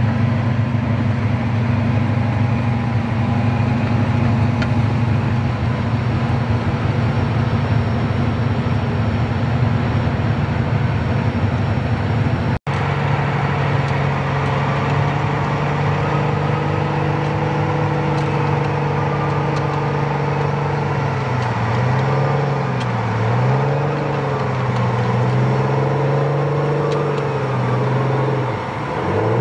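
Tracked armored vehicles' diesel engines running as they drive over dirt. After a sudden cut about a third of the way in, an M113-type armored carrier's engine holds steady, then rises and falls in pitch several times near the end as it manoeuvres.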